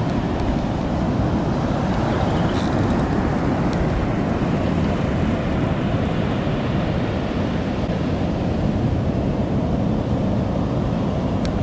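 Steady low rushing of wind on the microphone mixed with breaking surf, with a couple of faint clicks.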